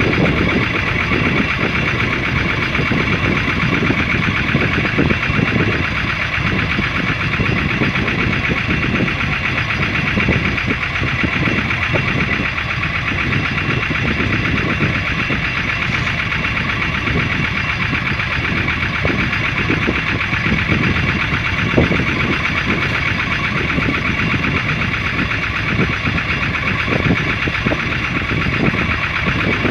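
Fishing boat's engine idling steadily, with a fast even pulsing that does not change.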